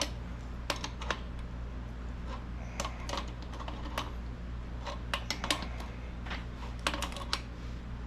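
Scattered light clicks and taps of tools and metal parts being handled while a sandblaster tank is taken apart, some in quick clusters, over a steady low hum.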